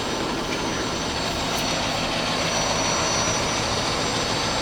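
Ikegai TU-30LL CNC lathe spindle with its 15-inch three-jaw chuck spinning steadily at about 1,200 RPM in high gear range: an even whirring rush with a faint high whine.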